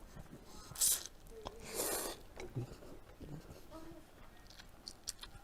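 Someone eating egg noodle soup: chewing, with two short, loud hissing sounds about one and two seconds in.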